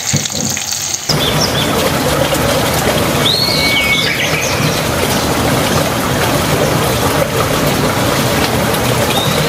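Oil sizzling steadily in a wok as tomatoes, cumin and chilli fry, starting about a second in. A few short bird chirps sound faintly behind it.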